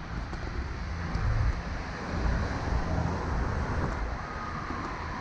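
Traffic on a busy city street: a steady rumble of car engines and tyres, with wind buffeting the microphone.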